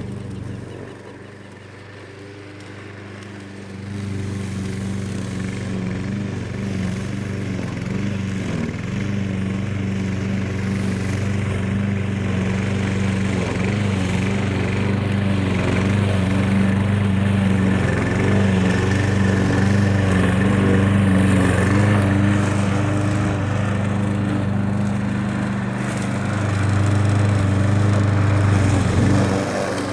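A 7.25 hp Plumita gasoline lawn mower engine running steadily. It is quieter for the first few seconds, comes up louder about four seconds in, and grows louder again near the end.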